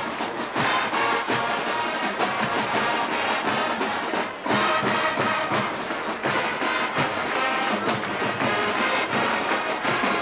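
Marching band playing, brass (trumpets and trombones) over drums with a steady beat.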